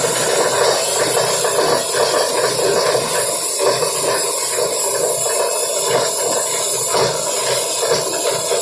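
Plastic-sack recycling machinery running steadily: an even, loud mechanical noise with no clear rhythm or pauses.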